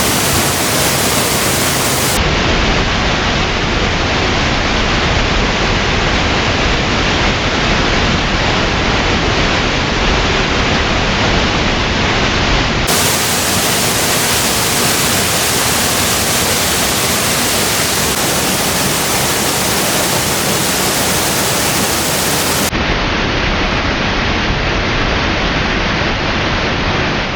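Waterfall: a loud, steady rush of falling water, with abrupt changes in tone where separate clips are joined.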